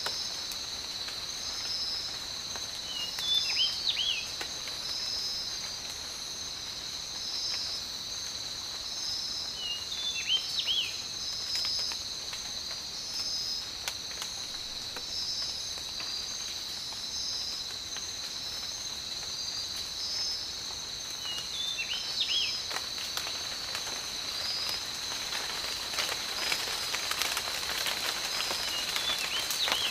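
Tropical rainforest ambience: insects keep up a steady high-pitched drone, with a second insect call pulsing about once every second and a half. Short chirping calls break in four times, and rain pattering picks up in the last few seconds.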